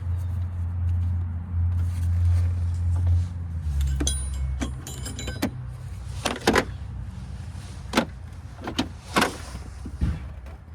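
Metal hand tools clinking and knocking during engine work: a metallic rattle about four seconds in, then several sharp knocks, over a steady low hum that drops in pitch early on.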